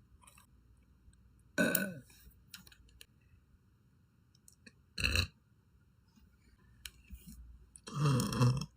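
A girl burping three times: a short burp that drops in pitch about one and a half seconds in, a brief one about five seconds in, and a longer, drawn-out one near the end.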